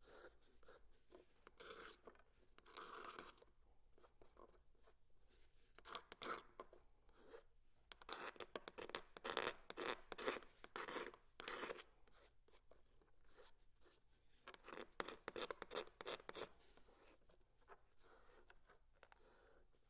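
Small blade scraping the old finish off a bamboo fly rod section in quick, short scratchy strokes, coming in runs with the busiest stretches a little before halfway and again about three quarters through.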